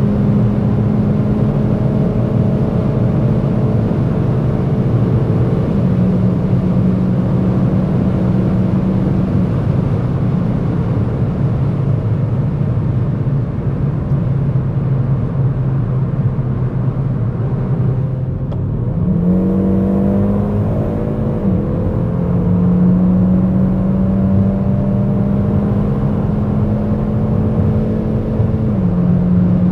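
Hyundai i30 N's 2.0-litre turbocharged four-cylinder engine running at high revs at high speed, under a steady rush of wind and tyre noise. The engine note drops lower about a third of the way in, dips briefly about two-thirds in, then climbs quickly back up and holds steady.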